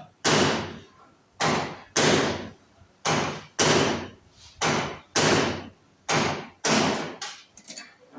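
Hammer blows, loud and sudden, mostly in pairs about half a second apart, each with a short ringing tail; near the end come several quicker, lighter taps.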